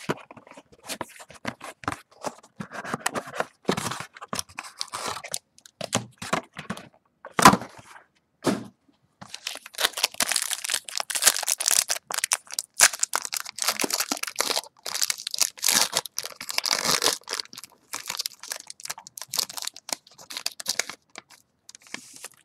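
Shrink-wrap and packaging being torn open on a sealed box of Topps Strata football cards: tearing, crinkling plastic and cardboard cracks. There is one loud snap about seven seconds in and a busy stretch of rustling and ripping after it.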